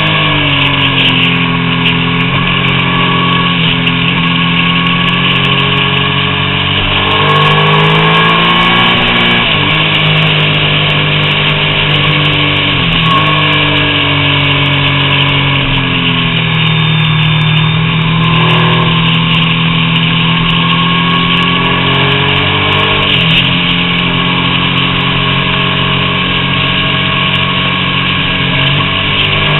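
Triumph Daytona 675's three-cylinder engine running at road speed, its pitch climbing and falling with the throttle, with a sharp drop about nine and a half seconds in. A steady rush of wind and road noise runs under it.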